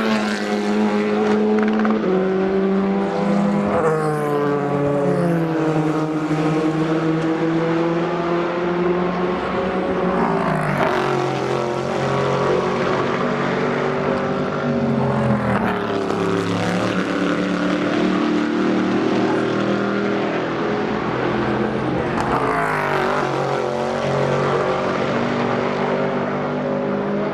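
Race cars passing one after another at a corner, about five in turn, each engine note swelling and then dropping in pitch as the car brakes, shifts down and goes by, with the next car's engine already audible behind it.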